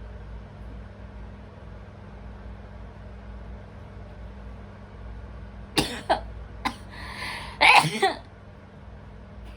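A person sneezing: a few short sharp sounds, then a breathy stretch and a loud sneeze about eight seconds in, over a faint steady background hum.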